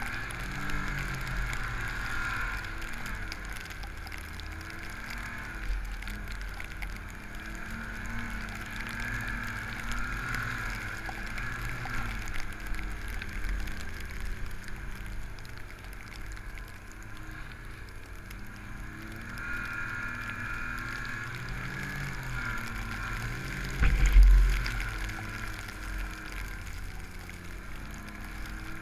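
Snowmobile engine running through deep powder, its pitch rising and falling with the throttle. About 24 seconds in there is a single loud, low thump.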